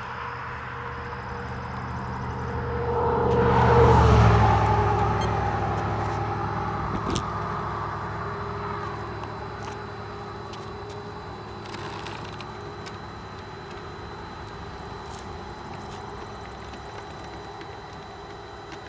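A full-size car driving past on the road. It grows louder to a peak about four seconds in, its pitch dropping as it goes by, then fades away slowly.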